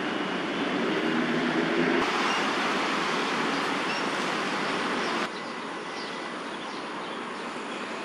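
Steady outdoor background noise: an even hiss with a low hum underneath. It grows louder about two seconds in and drops abruptly a little after five seconds.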